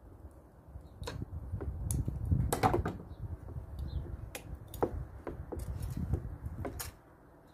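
Pliers and metal engine parts clicking and knocking while a fuel line is worked off a lawnmower carburettor: irregular sharp clicks, the loudest cluster about two and a half seconds in.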